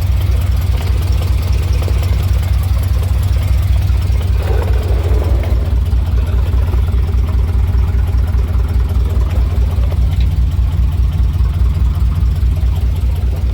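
1988 Chevy K2500 pickup's carbureted engine (an Edelbrock 650 replacing the original throttle-body injection) idling steadily with an even low pulse. It keeps running rather than dying: the fuel pump is keeping up with fuel from the newly fitted tank.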